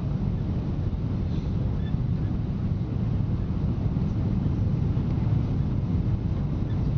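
Steady cabin noise inside a Boeing 777-200 on final approach: the even, low-pitched sound of the engines and the airflow over the fuselage, with no distinct bumps or clunks.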